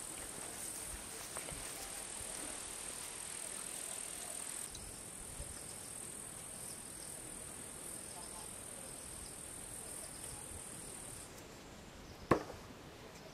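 Insects chirring steadily at a high pitch in the background, then a single sharp knock near the end as a thrown shuriken strikes wood.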